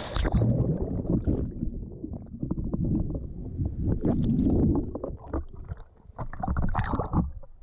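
Churning seawater heard through a submerged GoPro: a muffled, low rumbling and gurgling of whitewater and bubbles. Brighter splashing comes through near the end as the camera reaches the surface.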